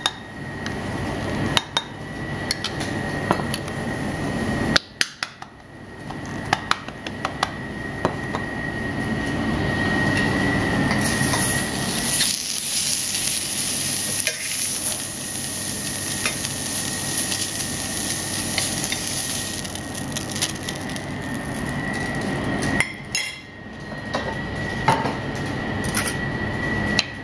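A spoon clinks against a ceramic plate and bowl in scattered light taps. From about eleven seconds in, marinated monkfish pieces sizzle in an oiled stainless frying pan for about eight seconds. A steady high whine runs underneath.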